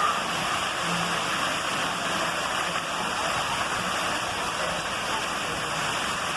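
Steady rush and splash of falling water from a water-park play structure.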